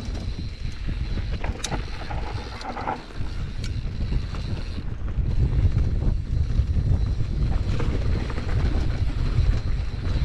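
Wind rumbling on the microphone over the rattle of a mountain bike riding a trail, with a few sharp clicks and knocks. The rumble grows stronger about halfway through.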